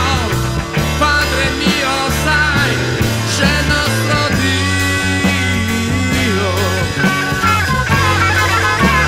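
Instrumental passage of early-1970s Italian progressive rock: a rock band plays, with a loud, steady bass line under guitar and a regular beat, and no singing.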